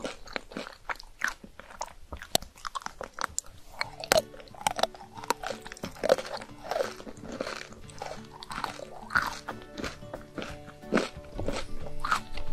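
Close-up crunching bites and chewing of a thin round chocolate cookie, a rapid run of sharp crackly clicks that goes on throughout.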